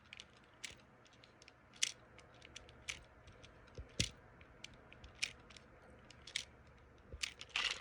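Scattered light clicks and taps at irregular intervals, about one or two a second, from handling a small plastic toy train engine and its packaging.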